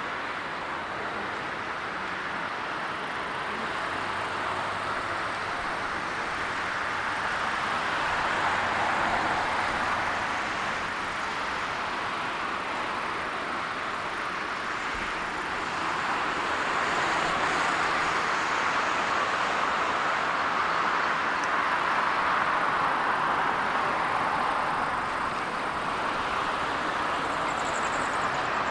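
Jet airliner engines heard across the airfield: a steady rushing noise that swells twice, most strongly in the second half.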